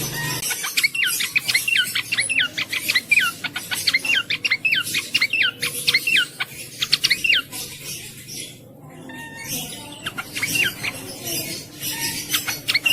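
Cingcoang (jongkangan) singing: a fast, lively run of sharp, downward-sweeping whistled notes that breaks off about two thirds through, then resumes in shorter bursts near the end.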